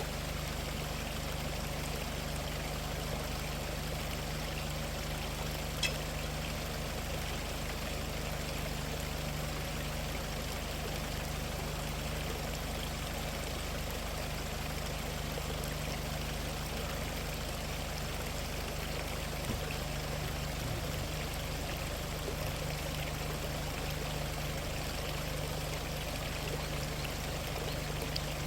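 Mountain stream flowing steadily, with a steady low hum underneath and a single sharp click about six seconds in.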